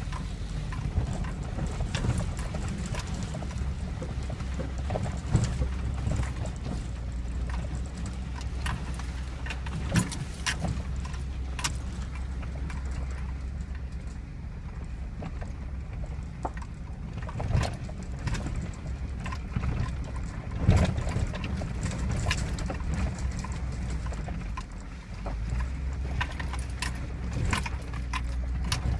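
A 4x4 truck's engine running low and steady in four-wheel drive, with frequent knocks and rattles as it crawls over a rough trail; a few sharper jolts stand out, the loudest about twenty seconds in.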